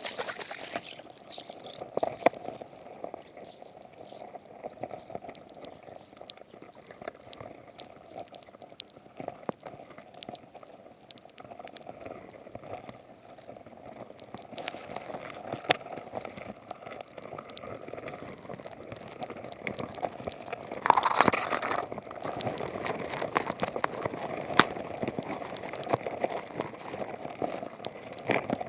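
Underwater ambience picked up through an action camera's waterproof housing: a steady watery hiss scattered with frequent sharp clicks and crackles, and a louder rush of noise about three quarters of the way through.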